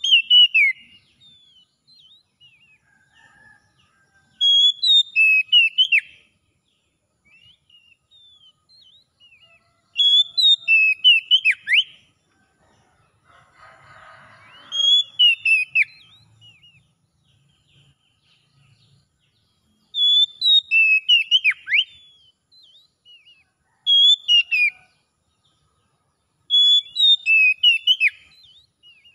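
Oriental magpie-robin singing: about seven loud phrases of clear whistles and quick down-sweeping notes, each lasting a second or two and coming every four to six seconds, with faint soft notes in the gaps.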